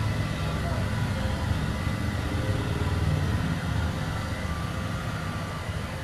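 Handheld electric hair dryer running steadily, its motor and airflow making an even whooshing noise as it blows through hair.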